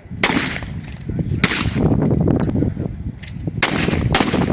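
Shotgun shots: four sharp reports, one at the start, one about a second later, then two close together half a second apart near the end, with a fainter crack just before them.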